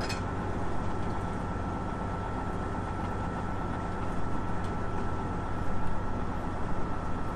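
Steady low hum of an idling truck engine heard inside the sleeper cab, with a thin steady whine over it and a faint click or two as food is handled.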